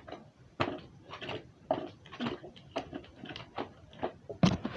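Plastic fidget toys being handled: a run of irregular taps and clacks, about two or three a second, with one louder knock near the end.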